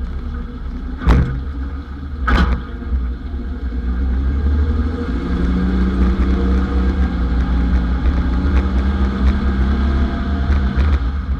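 1991 Ford Explorer running with a heavy low rumble, two sharp knocks about a second apart near the start, then a steady hum.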